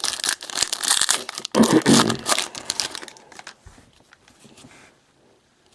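Foil wrapper of a trading-card pack being torn open and crinkled in the hands, a dense crackling for about two and a half seconds that then dies down to faint rustling.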